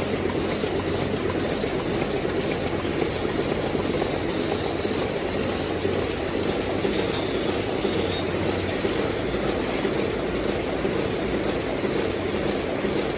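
Steady mechanical rumble and hiss, even and unbroken.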